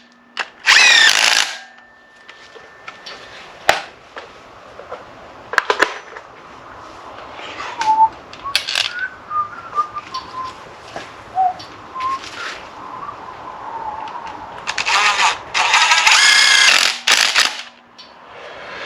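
A handheld power tool, such as a cordless drill or impact driver used on engine bolts, runs in short bursts twice, with a wavering whine. Between the bursts come a few sharp metallic clinks of hand tools.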